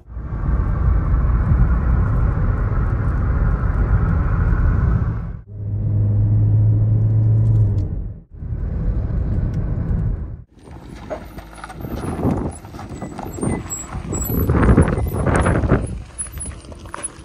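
Road and engine noise heard from inside a moving car, in several short cuts, one of them with a strong steady low engine hum. About ten seconds in it changes to outdoor sound with irregular crunches of footsteps on a stony dirt track.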